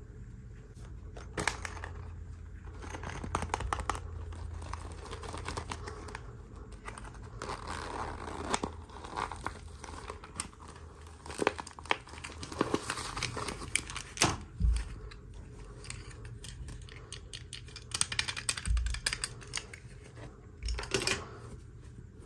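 Toy packaging being handled and opened by hand: irregular crinkling and tearing with scattered sharp clicks and taps.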